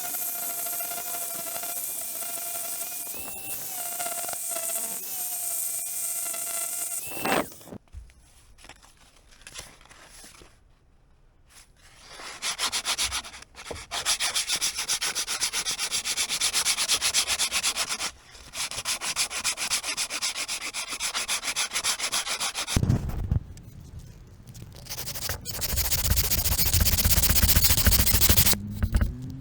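Old wooden chair frame being sanded. An electric sander runs with a steady whine for about the first seven seconds. After a short lull, abrasive rasps on the wood with a dense, scratchy sound that grows heavier near the end.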